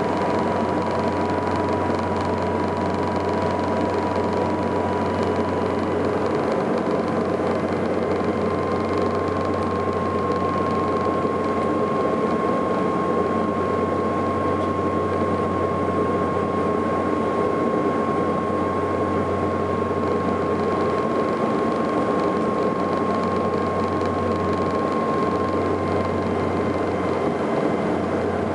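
Cabin sound of a Saab 340B turboprop airliner descending to land: the steady drone of its propellers and engines with a low hum underneath. A thin high whine steps up slightly in pitch about eight seconds in and drops back near the end.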